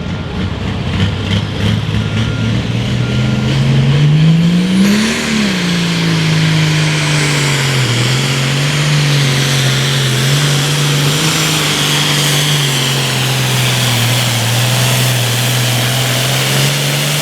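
Case pulling tractor's diesel engine at full throttle, pulling the sled down the track: it revs up over the first few seconds, then holds a steady, heavy pull with small dips in pitch, and cuts off suddenly at the end.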